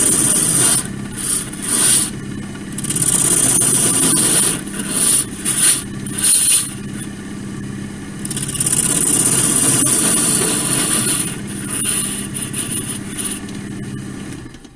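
Wood lathe running with a steady motor hum while a turning tool (a paring tool) cuts into spinning laurel wood in repeated hissing cuts, some brief and two lasting several seconds; the lathe stops at the very end.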